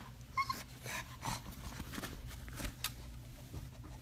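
Pug making a couple of short whining sounds early on, then snuffling, with a few light clicks and knocks.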